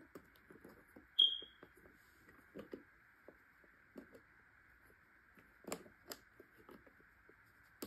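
Scattered light clicks and knocks of a tumbler spinner's plastic parts being handled and fitted onto its metal rod, with a sharp click and a brief high ring about a second in, over a faint steady hiss.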